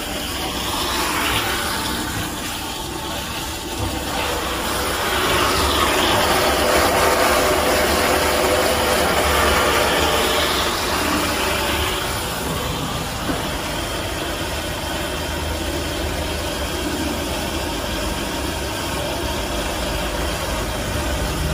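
A 300L stainless steel vacuum mixing tank running, its motor humming steadily while the stirrer churns liquid in the pot. The sound grows louder for several seconds in the middle.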